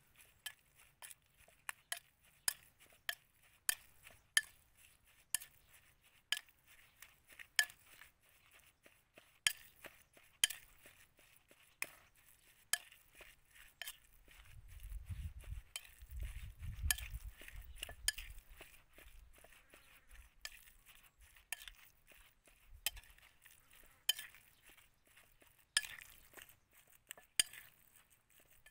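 Metal spoon clinking and scraping against a bowl while mixing minced pork with seasonings: repeated sharp taps about once or twice a second. A low rumble runs for a few seconds about halfway through.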